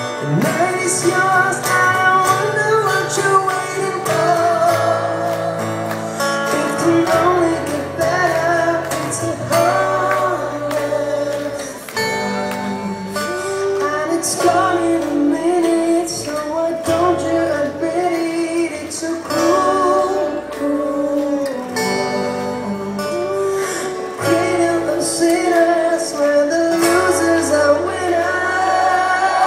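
Live acoustic band music: strummed acoustic guitars and bass guitar with light percussion keeping a steady beat, under a sung melody.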